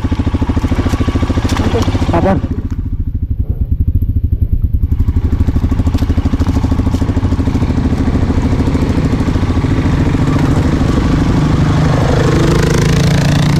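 Motorcycle engine running with a fast, even beat as the loaded bike is pushed along a dirt trail; the revs rise a little near the end.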